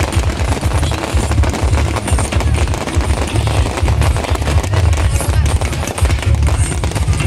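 Fireworks display: a dense, continuous barrage of rapid bangs and crackling over heavy low booms that swell and fade in clusters.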